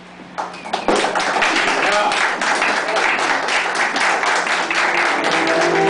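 Audience applauding after the dance music ends, the clapping starting about half a second in and quickly growing loud, with voices calling out over it.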